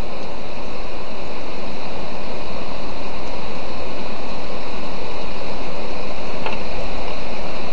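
Heavy rain pouring steadily, a loud even hiss.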